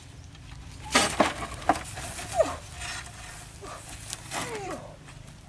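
Metal wheelbarrow clanking and rattling as it is pushed over rough ground, with a few sharp knocks about a second in. Several short falling-pitched calls come through later.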